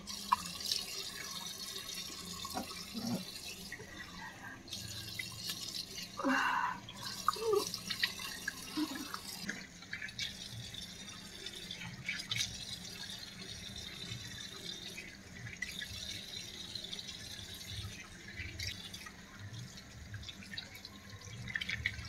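Water running from a metal tap into a basin, with irregular splashes as water is scooped up to wash a face.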